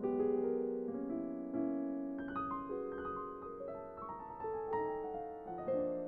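Casio digital piano being played: a flowing melody of short notes moving up into the higher register over held lower notes.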